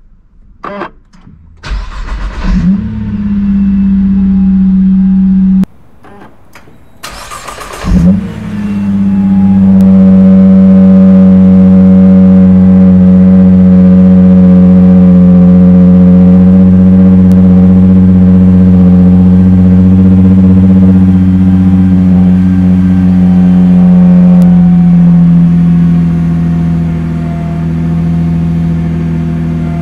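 Nissan GT-R50 by Italdesign's twin-turbo V6 being started: a few clicks and a short crank, catching about two and a half seconds in. After a sudden break it cranks and catches again about eight seconds in, flaring briefly, then idles steadily, the idle stepping down in pitch near the end.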